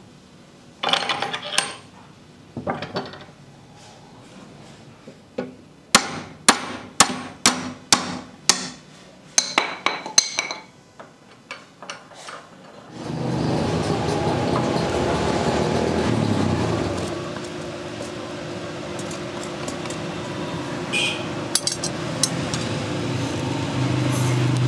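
Hammer blows on a rusty hammer head clamped in a vise, knocking out its old handle: about a dozen sharp metallic strikes with a ringing tone, most of them in a quick run. About halfway through, a loud, steady rushing noise from the coal forge's fire takes over.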